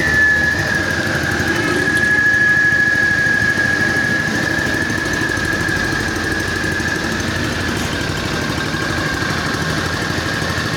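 6 HP Mitsubishi petrol engine of a walk-behind asphalt and concrete cutting saw running steadily. A high steady whine sits over the engine noise; it dips slightly in pitch in the first half-second, then holds.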